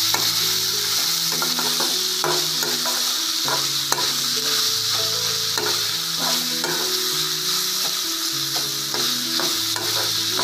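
Sliced onions, green chillies and curry leaves sizzling in hot oil in an aluminium kadai as they sauté until soft. A metal spatula stirs them, scraping and clicking against the pan one or two times a second.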